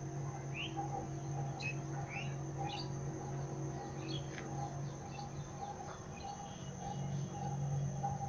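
Small birds chirping in short, quick rising calls scattered throughout, over a steady low hum.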